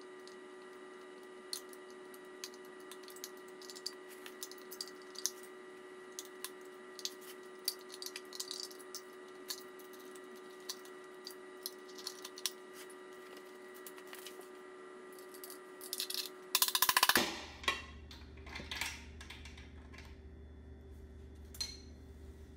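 Small metallic clicks and taps of a tool working the snap rings at the front pump of a 545RFE automatic transmission, over a steady hum. There is a louder clatter of metal about seventeen seconds in.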